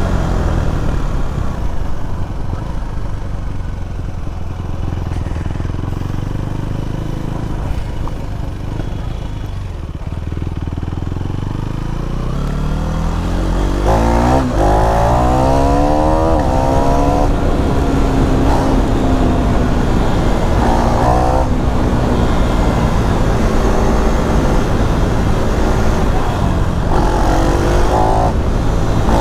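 KTM Duke 390's single-cylinder engine on the road. It runs at a steady lower pitch at first. About twelve seconds in it accelerates hard, the revs climbing and dropping several times as it shifts up through the gears. It then holds a higher, steadier note, with a couple of quick rev rises near the end.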